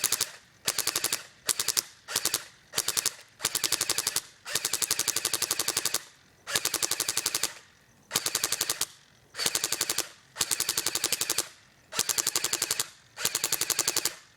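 Thompson M1A1 .45 ACP submachine gun firing full-auto in a string of about a dozen short bursts of rapid shots. The longest burst, nearly two seconds, comes about four seconds in.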